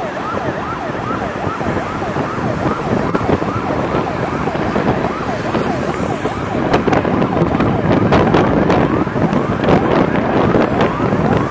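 Vehicle siren in a fast yelp, its pitch sweeping up and down a few times a second over the steady road and wind noise of a moving vehicle. A few sharp clicks sound in the second half.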